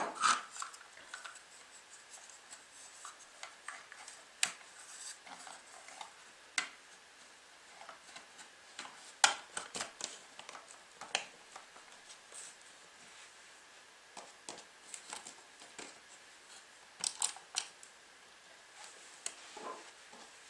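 Scattered small clicks, taps and light scrapes of a Phillips screwdriver working screws and plastic parts while the night-light assembly is fastened into the wall, with quiet pauses between.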